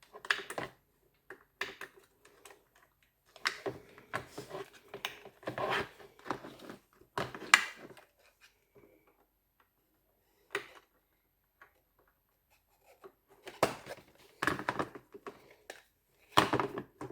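Plastic clicks, knocks and rattles of a Cecotec Conga robot vacuum's parts being handled and fitted back together, in scattered bursts with short quiet gaps; the sharpest knock comes about halfway through.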